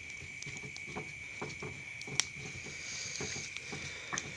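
Faint, irregular crackling and small clicks from a fire grilling eels and cassava, over a steady high-pitched tone.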